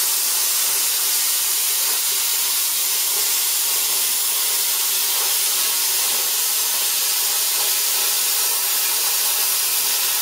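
Plasma cutter torch cutting through sheet metal: a steady hiss from the arc and its gas jet, holding even throughout.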